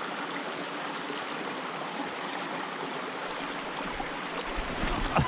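Small mountain stream running over rocks: a steady rush of water. Near the end, a low rumble and a few short knocks come in.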